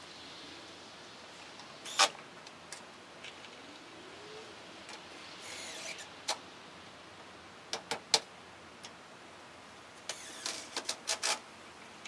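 Sharp clicks and knocks from handwork on an aluminum sheet panel. There is a loud one about two seconds in, a few more around the middle, and a quick run of them near the end, with a brief rasp in between.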